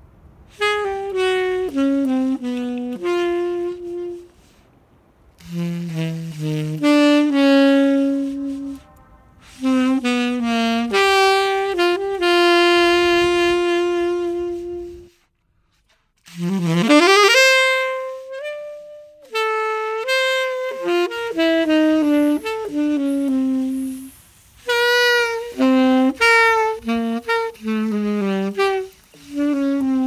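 Background music: a solo saxophone playing a melody in short phrases separated by brief pauses, with a steep upward swoop about halfway through.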